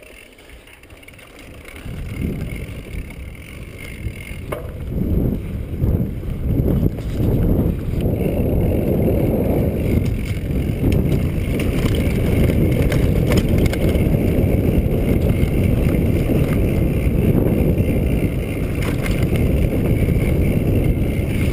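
Mountain bike descending a dirt trail at speed: steady wind rush on the microphone over the rolling noise of knobby tyres and the rattle of the bike, with occasional knocks from bumps. It starts quiet and builds over the first few seconds as the bike gathers speed.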